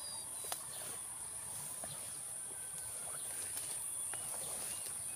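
Steady high-pitched shrill of insects, with a few faint, short bird chirps scattered through and a small click about half a second in.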